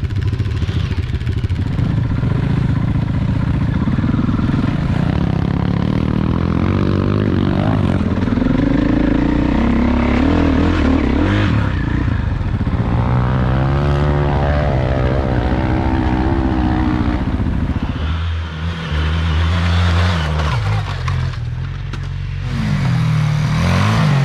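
Enduro dirt bike engine running under load on a trail, its pitch rising and falling as the throttle is worked, with a brief drop about eighteen seconds in.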